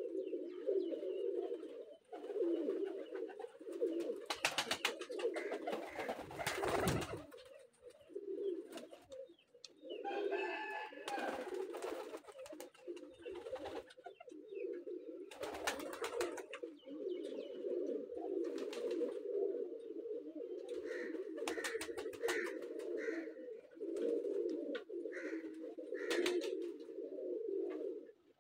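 A flock of domestic pigeons cooing continuously, many voices overlapping into a steady low hum. A few short rustling bursts break through, the loudest about six to seven seconds in.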